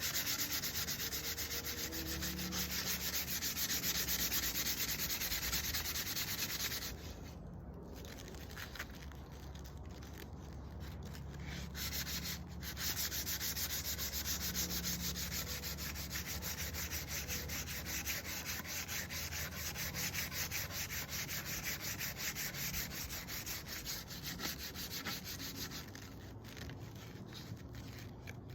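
Sandpaper rubbed by hand over wood in quick back-and-forth strokes, with short breaks about seven and twelve seconds in and lighter strokes near the end.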